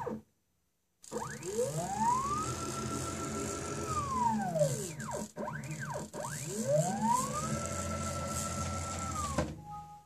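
CNC mill's stepper motor driving the table along its axis: a whine that rises in pitch as the motor accelerates, holds steady, then falls as it slows to a stop. This happens twice, with a short rise and fall between, over a low running rumble of the leadscrew and table.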